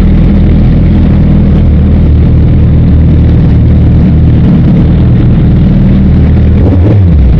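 Suzuki Hayabusa's inline-four engine running steadily on the move, loud and low. Its pitch drops briefly near the end.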